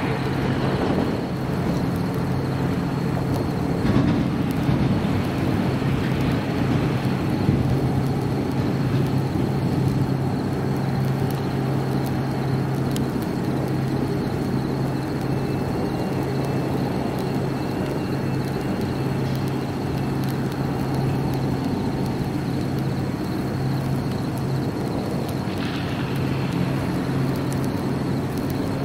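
Steady drone of heavy diesel fire apparatus engines running their pumps, with the noise of master streams of water spraying.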